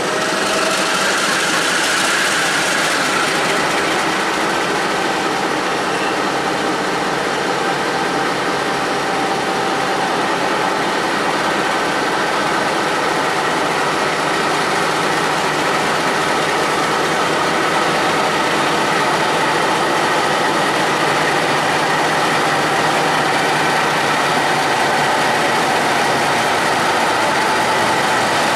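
Several MLW diesel locomotives, led by an MX627, running steadily as they pull a loaded freight train slowly forward: a continuous diesel engine sound that holds level throughout.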